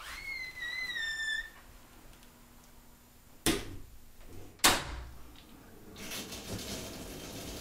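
Door hinge squeaking in a high, wavering creak as an interior door swings shut, followed by two sharp knocks a little over a second apart. A steady hiss sets in near the end.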